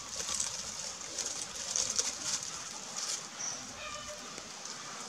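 Dry leaf litter crackling and rustling as macaques shift about on the forest floor, with a few faint short calls about three and a half seconds in.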